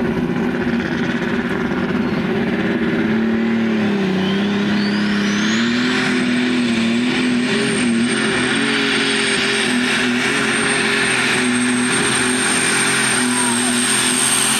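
Super stock pulling tractor's turbocharged engine running at full power as it hauls the sled down the track. A turbo whine climbs over a few seconds and then holds at a high, steady pitch.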